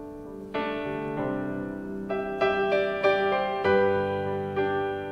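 Electric stage piano played solo, slow sustained chords that change every second or so.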